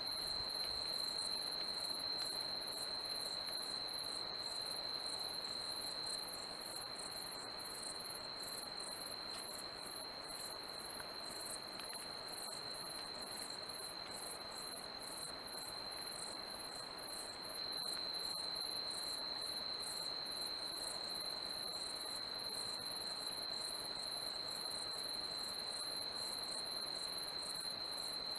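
Night insects singing: a steady high-pitched trill of crickets, with a faster, higher, evenly pulsing chirp layered over it. The chorus dips slightly about six seconds in and comes back up about eighteen seconds in.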